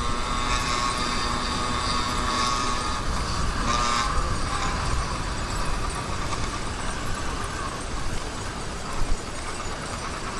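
Motorized bicycle's YD100 two-stroke engine running under way; its note steps down about four seconds in, as if the throttle is eased off.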